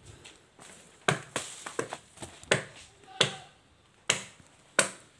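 Machete chopping at the fronds of a felled coconut palm: about seven sharp, irregular blows, roughly one every half second to a second.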